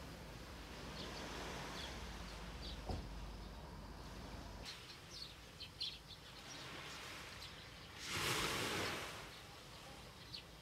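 Outdoor ambience with scattered short bird chirps in the first half and a low steady rumble that drops away after about four and a half seconds. A brief rushing swell of noise about eight seconds in is the loudest moment.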